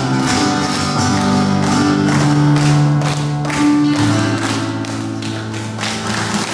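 Live worship band music: sustained chords over a steady beat.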